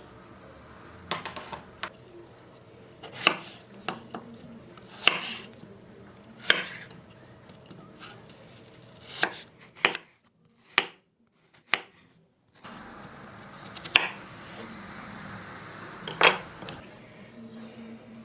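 Kitchen work: separate sharp knocks and clinks of utensils and dishes, like a knife on a cutting board, every second or two, with a short break of near silence about two-thirds of the way through.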